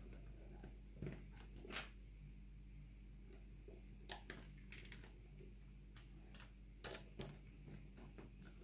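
LEGO bricks clicking and tapping as they are handled and pressed together: faint, irregular plastic clicks, some in quick pairs, over a steady low hum.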